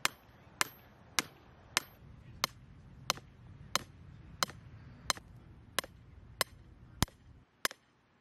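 Hammer pounding an 8-foot grounding rod into the ground: about thirteen sharp metallic blows at a steady pace of roughly three every two seconds, the first few with a faint high ring, stopping a little before the end.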